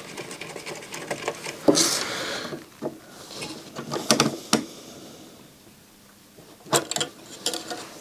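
Irregular clicks, taps and short rattles of small plastic and metal parts being handled and worked loose while a stereo receiver is taken apart by hand.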